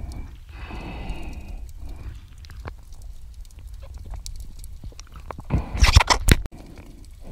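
Underwater sound picked up by a diver's camera: a steady low rumble of water with scattered faint clicks. About five and a half seconds in comes a loud rush of noise that cuts off suddenly.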